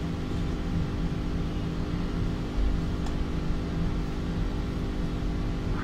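Steady hum of room and equipment noise, several even tones over a light hiss, with one faint tick about three seconds in.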